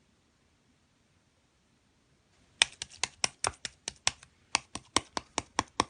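A quick run of sharp, crisp clicks, about five a second, starting roughly two and a half seconds in after a near-silent stretch.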